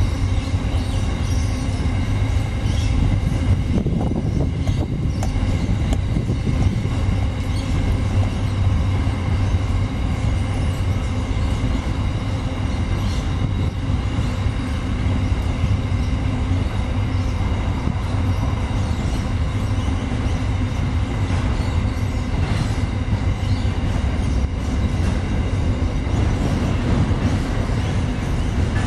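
Steady, loud low rumble of urban noise with a few faint, steady high-pitched tones over it; no bird calls stand out.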